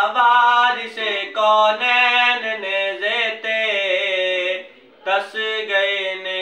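A man singing a Punjabi naat unaccompanied, in long held notes that slide between pitches, with a short breath pause about five seconds in.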